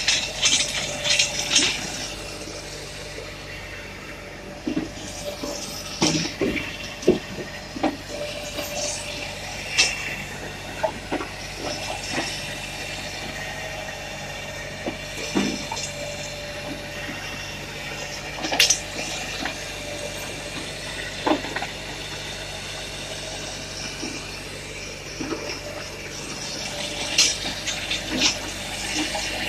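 Tractor-driven Hakki Pilke 2X firewood processor running steadily with a low hum and a hissing wash, with scattered sharp knocks and clatter as a birch log is fed along the roller infeed deck.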